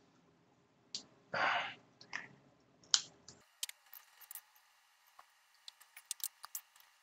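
Scattered small clicks and light taps of a Bosch drill battery pack's plastic housing and loose parts being handled on a tabletop, with a short burst of noise about a second and a half in.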